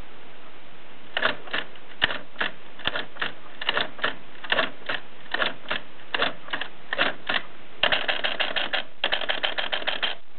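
Keys of a 1950s Express bakelite typewriter being typed. Separate clacks come at about two to three a second from about a second in, then two quicker runs of keystrokes near the end, with a short pause between them.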